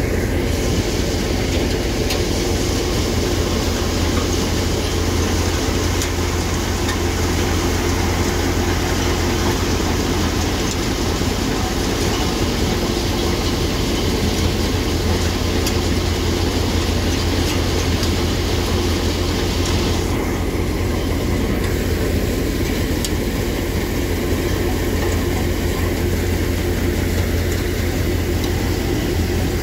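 Tractor-driven multicrop thresher running at a steady, loud drone while harvested crop is forked into it. A higher hiss drops away about twenty seconds in.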